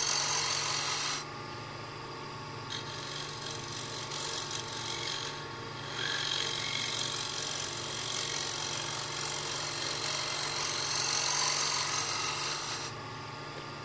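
Scraper with a freshly ground burr taking a light pass on spinning wood on a lathe: a rough rasping hiss over the steady hum of the lathe, easing off about a second in and briefly again around five seconds, then fading near the end.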